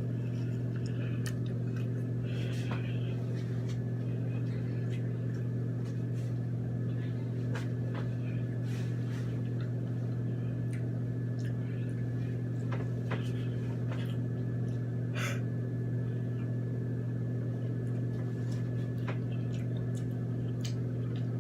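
A steady low hum, with a few faint scattered clicks and taps.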